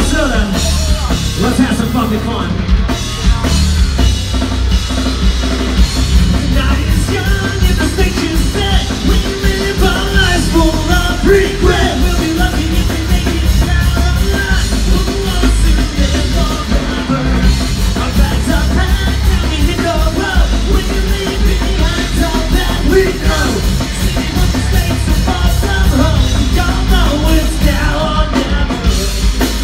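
Live rock band playing loud with guitars, drum kit and a singer's voice, heard from within the crowd.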